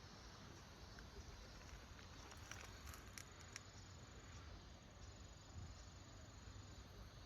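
Near silence: faint outdoor background with a thin, steady high insect-like tone and a few light clicks.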